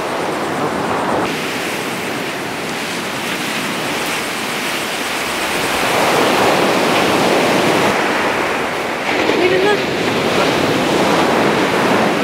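Ocean surf breaking and washing up the sand, a steady rush that swells louder about halfway through and again near the end.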